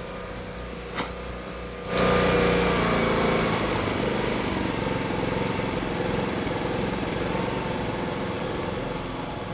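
Briggs & Stratton P3000 inverter generator running in economy mode with no load. There is a short click about a second in. About two seconds in the engine sound gets suddenly louder, its pitch eases down, and it settles to a steady run.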